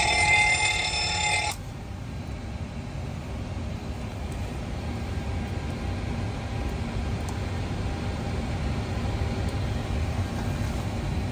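Boeing 737 cockpit fire warning bell ringing steadily during an engine and APU fire test, stopping suddenly about a second and a half in. A steady low rumble continues after it.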